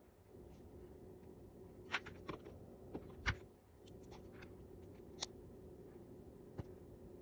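Small LEGO pieces and their packaging handled by hand: scattered light plastic clicks and short rustles, a few seconds apart, over a faint steady hum.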